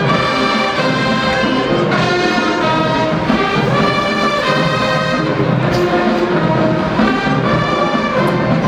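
Marching band playing, led by its brass section, with loud held chords that shift every second or two.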